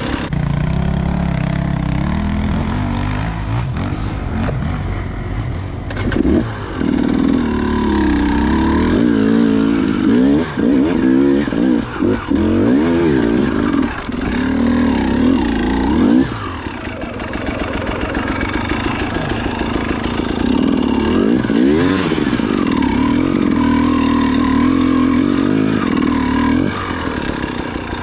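Dirt bike engine revving unevenly, the throttle blipped over and over so the note rises and falls quickly through the middle, with brief cut-outs. A little past halfway it drops to a lower, quieter note, then picks up again into a steadier higher run near the end.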